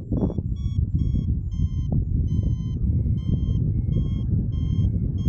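Paragliding variometer beeping about twice a second, the beep it gives when the glider is climbing in lift, over steady wind rumble on the microphone.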